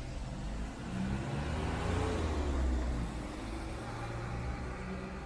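A motor vehicle's engine passing close by on the street, getting louder to a peak around the middle and then easing off, over a steady low traffic rumble.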